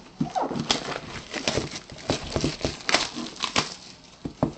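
Handling noise of a cardboard box being opened: a run of irregular sharp rustles, taps and scrapes as the lid is worked loose and lifted off.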